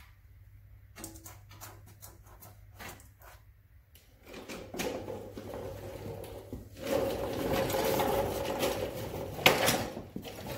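Scattered knocks and footsteps, then a rattling clatter of a sheet-metal rocker panel being picked up and handled, louder over the second half, with one sharp metallic knock near the end.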